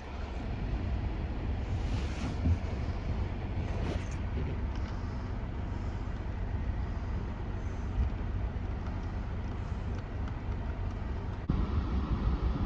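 Car engine idling steadily with a low rumble, with a single click near the end, after which the sound gets a little louder.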